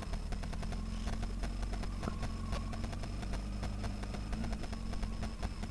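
Honda Hornet 900 motorcycle's inline-four engine running steadily at low revs, close to idle.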